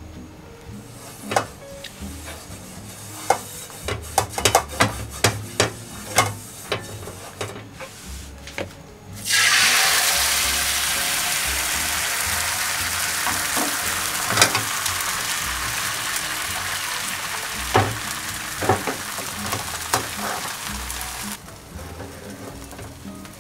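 Beaten egg poured into a hot, oiled non-stick frying pan, sizzling loudly the moment it hits the oil about nine seconds in, then a steady frying hiss that slowly eases and drops off sharply near the end. Before the pour there is a run of sharp clicks and taps.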